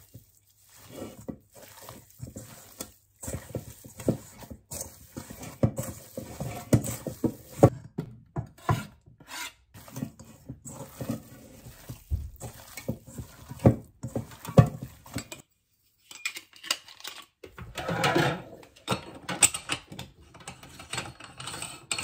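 Hands kneading minced pork with salt and spices in a stainless steel bowl: an irregular run of short smacks and squishes, with the meat knocking against the bowl. After a short pause near the end, a different stretch of handling noise follows.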